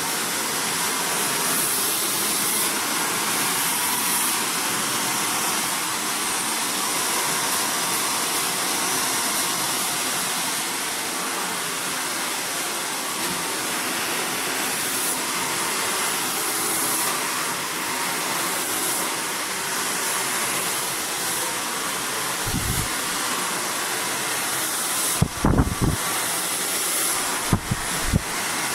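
Hand-held hair dryer running steadily, blow-drying hair straight. A few low thumps near the end.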